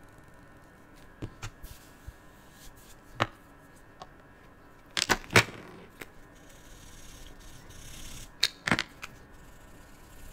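Irregular sharp plastic clicks and taps from art supplies being handled on a table: a glitter glue squeeze bottle and a felt-tip marker being put down, picked up and opened. The loudest cluster of clicks comes about halfway through, and a pair of clicks comes near the end.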